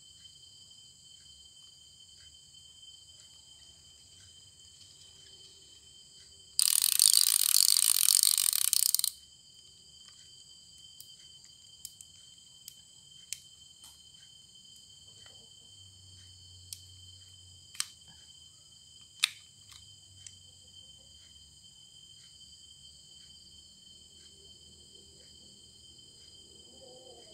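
Steady chirring of crickets, with scattered light clicks and taps from the plastic side plate and brake dial of a baitcasting reel being taken apart. About seven seconds in, a loud harsh rasping noise lasts about two and a half seconds and cuts off sharply.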